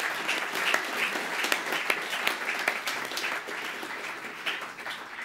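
Audience applauding: many hands clapping in a hall, thinning out toward the end.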